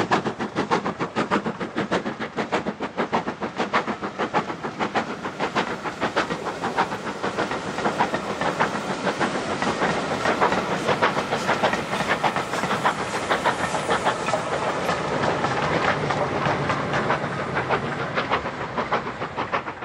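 LMS Black 5 4-6-0 steam locomotive working a train, its two-cylinder exhaust giving a quick, even beat of chuffs, about five a second, over a steady hiss of steam.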